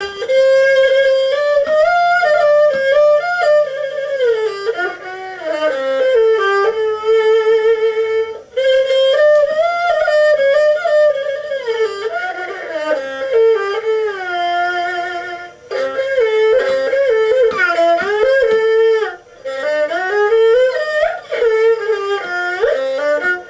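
Erhu, the two-string Chinese fiddle, bowed in a melody with vibrato and sliding notes. The phrases are broken by three brief pauses.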